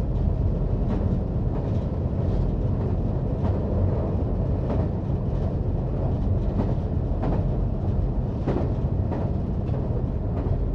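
Diesel multiple unit running at speed on the rails: a steady low rumble with a faint click of the wheels over the rail joints every second or so.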